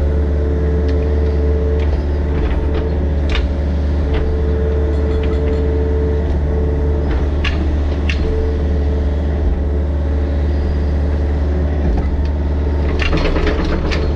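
Mini excavator's diesel engine running steadily, with a whine that comes and goes and a few sharp knocks, several close together near the end.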